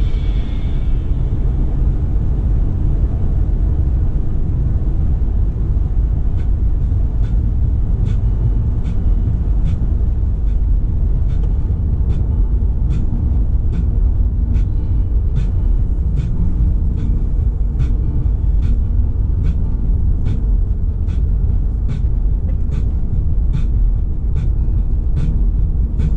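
Steady low road rumble of a car driving at speed, tyre and engine noise as picked up by a dashcam. From about six seconds in it is dotted with faint, irregular light ticks.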